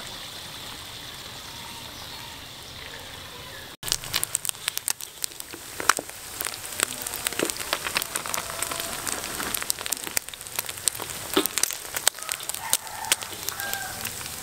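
Whole frogs deep-frying in hot oil in a wok, the oil crackling and popping densely. For the first few seconds there is only a steady sizzling hiss; after a sudden break about four seconds in, the crackling is close and sharp.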